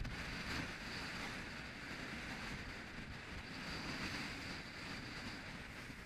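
Steady rush of strong wind and churning sea water around a rigid inflatable boat under way in rough, whitecapped seas.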